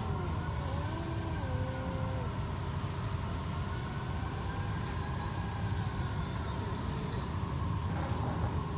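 Two stray cats yowling at each other in a territorial standoff: low, wavering yowls in the first two seconds, then a long drawn-out howl that rises and falls slowly over several seconds. A steady low rumble runs underneath.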